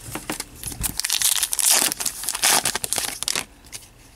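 Crinkly rustling of a trading card pack wrapper being handled, with a few clicks at first and then a dense crackling from about a second in until shortly before the end.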